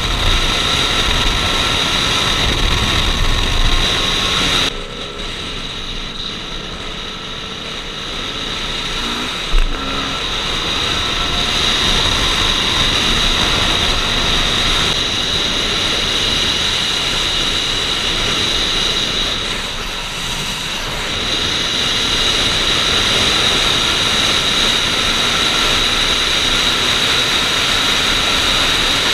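Dual-sport motorcycle's single-cylinder engine running steadily while riding, heard from an on-bike camera. The sound drops in level a little under five seconds in, and there is a single short knock about nine and a half seconds in.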